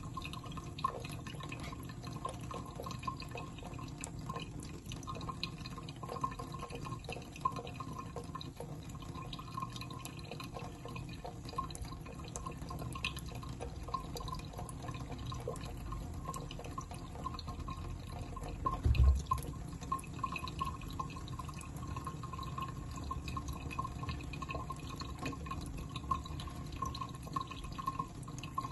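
Thin stream of water running from a tap while cats lap at it: many small wet ticks and drips. A short low thump about two-thirds of the way through.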